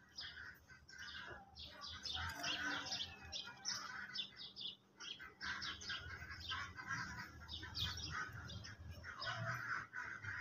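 Small birds chirping busily, many short overlapping calls.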